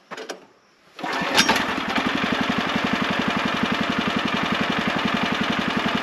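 Small single-cylinder gasoline engine of a Woodland Mills sawmill being started: a brief rattle of cranking, then it catches about a second in and settles into a steady, even running idle. It starts readily even though it has sat a while with gas left in the carburetor.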